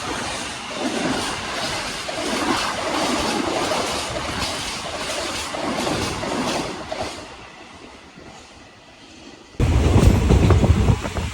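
Passenger train running on the rails with a rhythmic clickety-clack, fading away about seven seconds in. Near the end it cuts abruptly to loud wind buffeting on the microphone.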